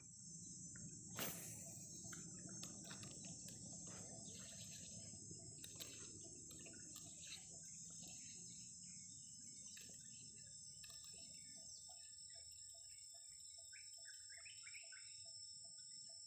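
Faint wetland ambience: a steady high-pitched insect drone with scattered bird chirps, and a soft click about a second in. In the last few seconds a regular low pulsing call joins in, about three a second.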